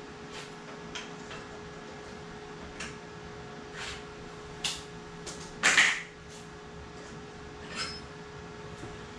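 Scattered knocks and clinks of metal parts being handled while someone rummages for a chainsaw bar, with a louder clatter about six seconds in, over a steady hum.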